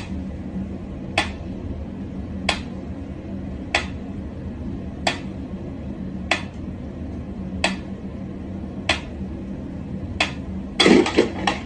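Mechanical pyramid metronome ticking slowly, one sharp tick about every 1.3 seconds, over a low steady hum. Near the end comes a brief, louder clatter.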